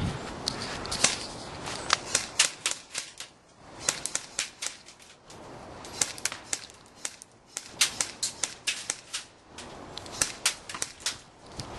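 Airsoft electric rifles, an Echo 1 XCR and a Cyma AK-74, firing strings of sharp clicking shots in several quick bursts with short pauses between.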